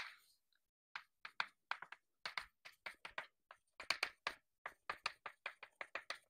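Chalk tapping and scraping on a blackboard while an equation is written, sped up: a faint, quick, irregular run of short taps, about three to five a second.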